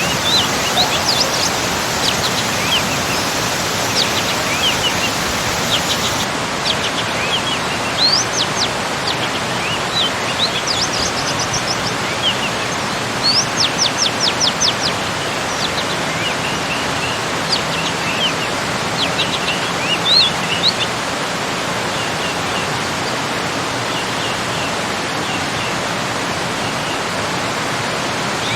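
Steady rush of a small garden waterfall, with birds chirping over it in short calls and rising notes, including a quick run of about half a dozen notes midway.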